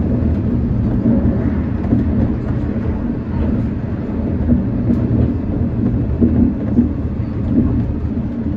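Shonan Monorail 5600-series suspended monorail car running, heard from on board. Its motors and rubber-tyred running gear make a steady low rumble as it draws into a station.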